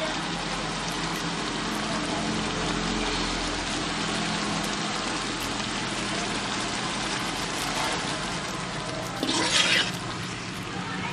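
Mango pieces simmering in jaggery syrup in a metal kadai: a steady hiss throughout, with a short scrape of a ladle in the pan near the end.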